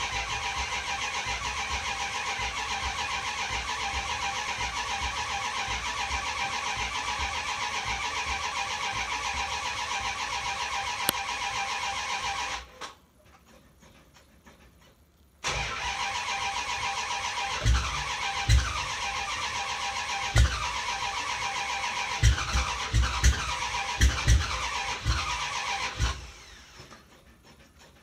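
A Dodge Charger's starter cranking the cold engine for about twelve seconds without it catching. After a short pause it cranks again for about ten seconds, with the engine firing in irregular loud low thuds but still not starting.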